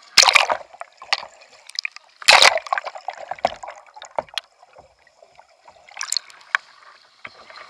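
A kayak capsizing and rolling back upright in a pool: loud splashing as it goes over, with two big splashes in the first three seconds, muffled sloshing and clicks while under, and another splash as it comes back up about six seconds in.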